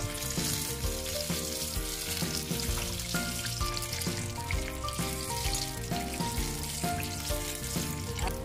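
Batter-coated fruit fritters sizzling as they deep-fry in hot oil, a steady hiss throughout. Background music with a moving melody plays over it.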